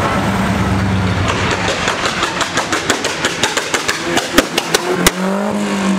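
A Mercedes-Benz saloon's engine running as it drives off, then a quickening run of sharp cracks and pops from the exhaust, with a couple of loud bangs, before the engine picks up and revs again near the end.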